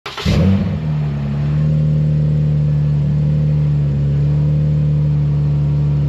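2018 Ram 1500's 3.6-litre V6 cold-starting through a Magnaflow Pro Series turn-down cat-back exhaust. It cranks, fires with a short flare of revs in the first second, then settles into a steady idle. The startup is loud, but not that loud at all.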